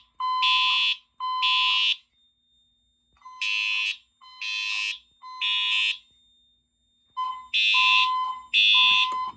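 Siemens UMHU-MCS fire alarm horn sounding the code-3 temporal evacuation pattern: three loud, harsh blasts of under a second, a pause, then the group of three again. Each blast carries a steady clear tone beneath its buzzy horn sound.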